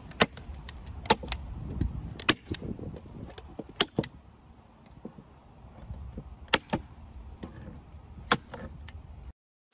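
DeWalt staple gun driving staples through a fabric liner into a wooden bed frame: about eight sharp clacks at uneven intervals, some in quick pairs, over a low rumble. The sound cuts off shortly before the end.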